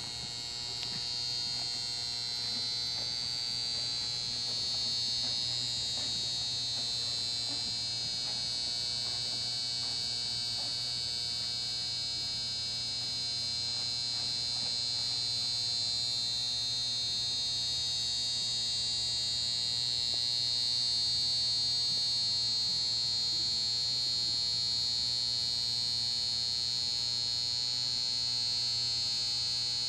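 Steady electrical buzz: a high, slightly wavering whine over a low hum, unchanging throughout.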